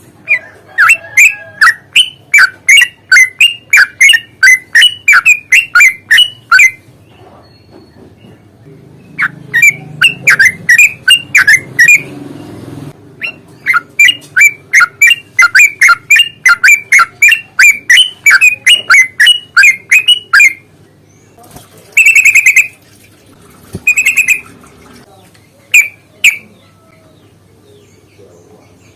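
Yellow-vented bulbuls calling in long, rapid strings of sharp chirping notes, about four a second, in three bouts. A few separate, harsher calls follow near the end.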